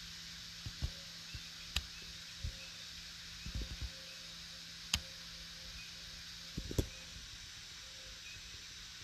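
Steady faint hiss over a low hum, broken by scattered soft low thumps and three sharp clicks.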